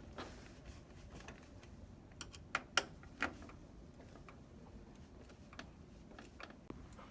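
Screwdriver driving the screws of a PS4's heatsink brace: scattered light clicks and ticks of the bit and screws, with two sharper clicks about three seconds in.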